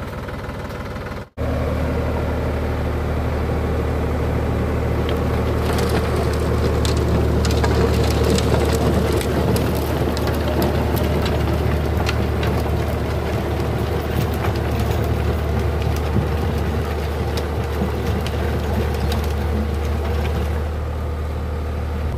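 Sonalika DI 47 RX tractor's diesel engine running steadily under load as it drives a 6-foot Sonalika rotavator through dry, cloddy soil. Over most of the stretch, dense crackling comes from the rotavator blades breaking up the hard clods. The sound drops out briefly about a second in.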